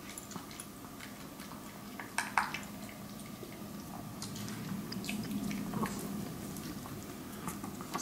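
Maltese dog eating dry kibble from a clear bowl: scattered crunches and clicks of kibble against the bowl, with the loudest cluster a little after two seconds in.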